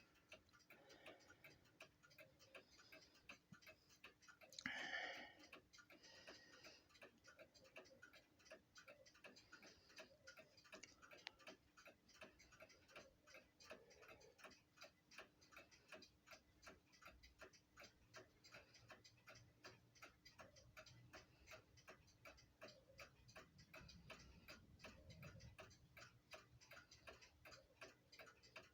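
Faint, steady, rapid ticking of antique mechanical mantel clock movements, a New Haven Tambour No. 50 and a Sessions Inlay No. 5, with one brief louder sound about five seconds in.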